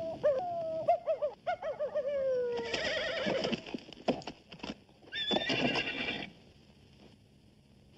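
Horse whinnying: a long quavering whinny falling in pitch, a few sharp knocks, then a second, higher whinny about five seconds in.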